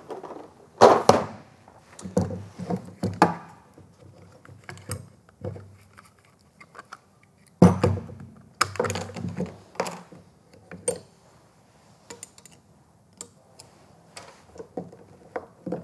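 Hand tools being handled on a workbench: a plastic tool case is moved and set down with thunks, then steel spanners clink and tap as they are taken from a set and tried on the motor's bolts. The loudest knock comes about eight seconds in, followed by a run of smaller metallic clicks.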